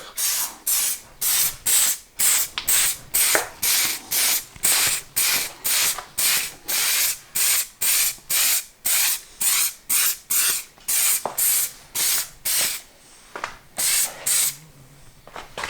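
Silicone shine protectant sprayed onto a mountain bike's frame and seals in quick repeated hissing squirts, about three a second. It pauses briefly near the end, gives a couple more squirts, then stops.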